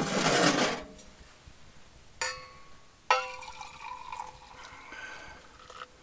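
A loud rush of noise in the first second, then two sharp clinks of a hard object about a second apart, each ringing on; the second rings for a few seconds as it fades.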